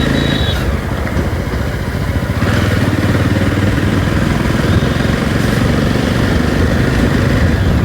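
Jawa 42 motorcycle's single-cylinder engine running steadily while riding, with wind noise rushing over the mic.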